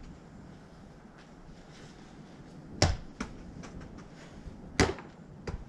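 Two sharp knocks about two seconds apart, each followed by a lighter knock: small thrown balls striking their targets and bouncing.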